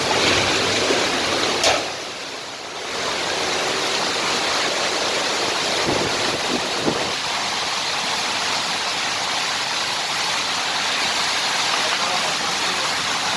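Very strong wind blowing in a steady rushing roar, easing for about a second a couple of seconds in, with a sharp knock just before the lull.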